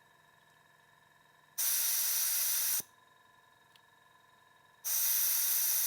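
Desoldering gun's vacuum pump sucking molten solder off the board's soldering points: two loud hissing bursts of about a second each, the first about a second and a half in and the second near the end, each cutting off with a click.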